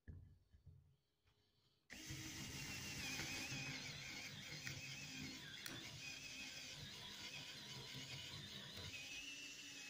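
Power drill running steadily as a twist bit bores a hole down into a wooden block, with a steady whine. It starts up about two seconds in.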